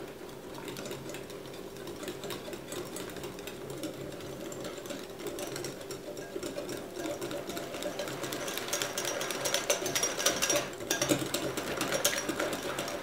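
Wire whisk beating cocoa brownie batter in a glass measuring jug, its wires rapidly and steadily clicking and scraping against the glass, louder from about eight seconds in.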